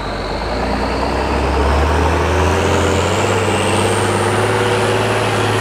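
Tatra six-wheel trial truck's diesel engine working hard under load on a steep off-road climb, its low note stepping up about halfway through. Over it a thin high whine rises steadily in pitch.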